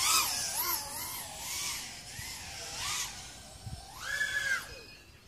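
Small FPV racing quadcopter's brushless motors and three-inch props whining, the pitch wavering up and down constantly with throttle. About four seconds in the whine climbs higher and louder, then drops away and fades near the end.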